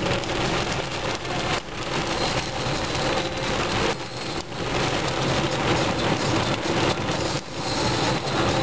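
Cloudburst with large hailstones and heavy rain beating on a car, heard from inside it: a loud, dense, steady noise of countless impacts.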